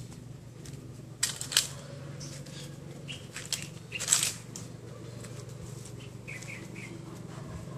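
Scattered crunching and rustling noises, the loudest a cluster between one and two seconds in and another about four seconds in, over a steady low hum. Three quick high chirps come near the end.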